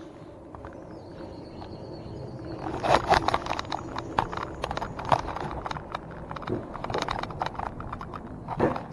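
Alpine coaster sled running along its steel rail track. Its wheels set up a loud, rapid clacking and rattling that starts about three seconds in, with a few louder knocks among it.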